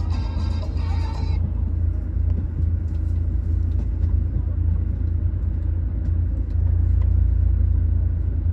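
Background music that cuts off suddenly about a second in, followed by a steady, loud low rumble that swells slightly near the end.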